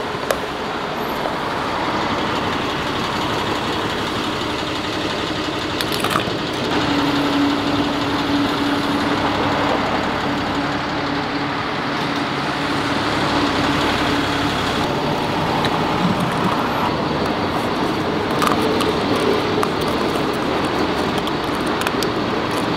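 Steady vehicle and road-traffic noise with engines running. A steady hum holds for several seconds in the middle, and a few sharp clicks come in the second half.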